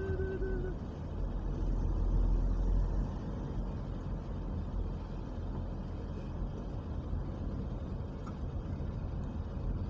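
Steady low rumble of a car's engine and tyres on the road, heard from inside the moving car's cabin. A short steady tone sounds at the very start and stops within the first second.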